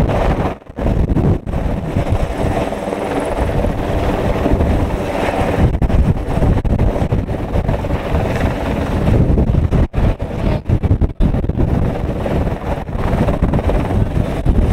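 Helicopter hovering overhead with a slung load, its rotor and engine running loud and steady, with wind buffeting the microphone.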